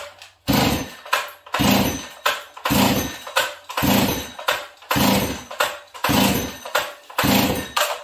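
A ported Stihl 038 Magnum chainsaw being pull-started by its recoil starter: seven rope pulls about one a second, the engine cranking over without firing. This is a hard cold start with a dry fuel system, which the builder puts down to running lean on the low-speed jet or a choke problem.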